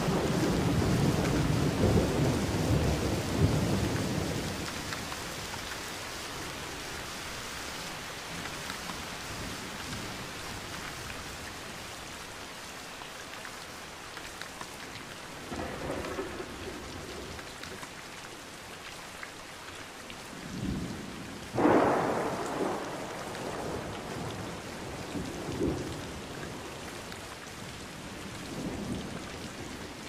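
Steady rain falling, with thunder. A long rolling rumble fills the first few seconds and fades. Later come a few softer rumbles and one sharper, louder thunderclap about two-thirds of the way through.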